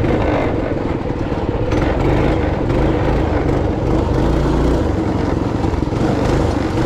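Motorcycle engine running steadily at low trail speed, its pitch wavering a little with the throttle, along with some rattle and wind over rough dirt.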